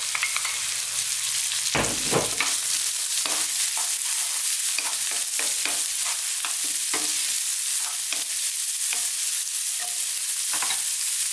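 Finely chopped onions sizzling in hot sunflower oil over high heat, with a wooden spatula scraping and clicking against the pan as they are stirred. One heavier knock about two seconds in.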